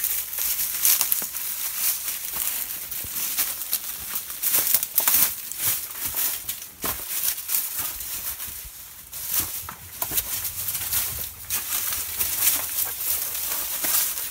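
Footsteps on dry grass and rocky ground, with twigs and brush rustling against clothing, in close, irregular crunches and crackles.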